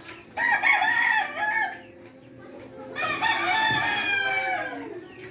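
A rooster crowing twice, the second crow longer and falling in pitch at its end.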